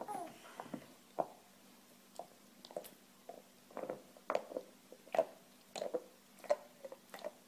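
A golden retriever chewing on a bone: irregular clicks and crunches of teeth on the bone, coming more often in the second half.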